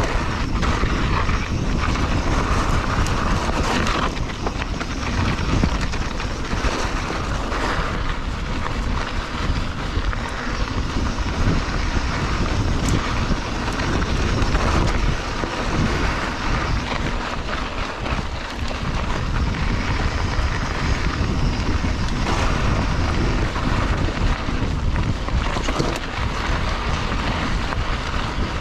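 Mountain bike riding fast over a rough dirt trail: steady wind rush on the microphone, with tyre noise and the bike rattling over bumps in many short clicks and knocks.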